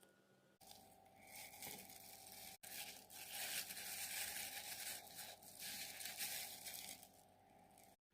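Small fish frying in hot oil in a pan: a steady sizzle with crackling that starts abruptly, breaks off for an instant about a third of the way in, then carries on and stops suddenly just before the end.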